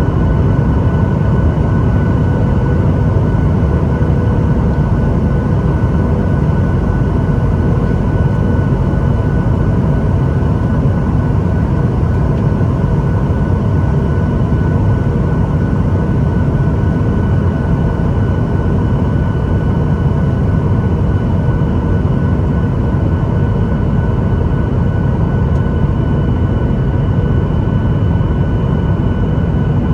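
Steady jet airliner cabin noise in flight: a constant low rush of engine and airflow with a faint steady whine on top, unchanging throughout.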